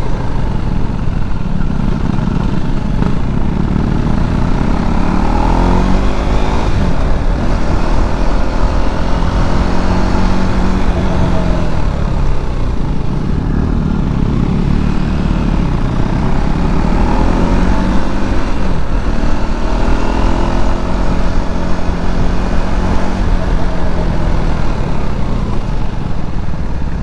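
Motorcycle engine on the move, revving up and easing off several times so that its pitch rises and falls in long sweeps, over a steady low rush of wind.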